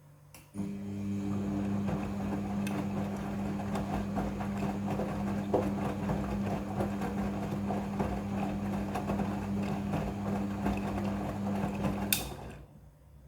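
Midea front-loading washing machine's drum turning: the motor starts abruptly with a steady hum while the load tumbles inside with small knocks, then it stops with a click about twelve seconds in.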